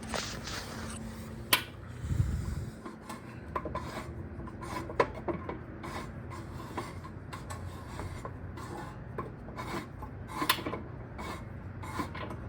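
Metal parts of a vintage Atlas Power King table saw being handled and moved, with irregular small clicks and knocks over a steady rubbing, scraping noise.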